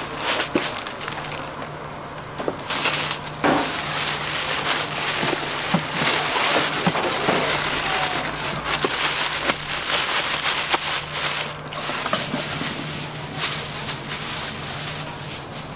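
Battered food deep-frying in hot oil: a dense crackling sizzle that swells up about three seconds in and eases off near the end, with a few light utensil knocks and a steady low hum underneath.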